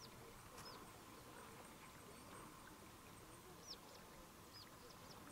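Near silence: faint outdoor ambience with a handful of short, high bird chirps scattered every second or so.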